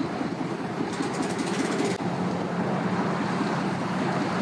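Pickup truck engine running steadily at low speed, a continuous rumble, with a light rapid ticking about a second in.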